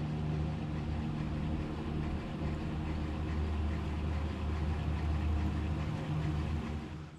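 Gondola cable car running: a steady low mechanical hum with a rumble as a cabin travels along the haul rope.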